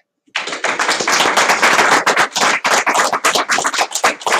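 Applause: many hands clapping in a dense, irregular patter that starts abruptly about a third of a second in.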